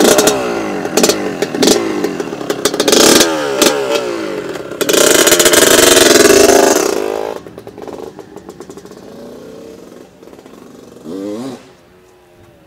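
Two-stroke Honda CR dirt bike engine revving in quick blips, then opened up hard and very loud for about two seconds. About seven seconds in the sound drops off sharply and runs on much fainter, with one more short rev near the end.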